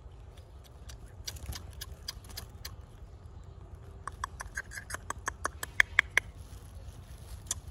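Baby macaque eating bread, with small wet mouth smacks and clicks as it chews. A quick run of louder smacks comes from about four to six seconds in.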